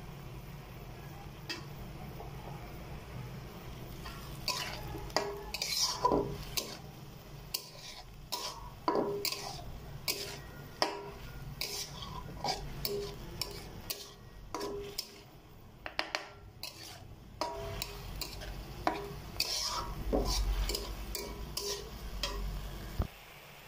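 A spatula scraping and knocking against a metal wok as diced chicken, tomato and green chili are stirred and fried in oil, in irregular clicks starting about four seconds in, over a low, steady sizzle.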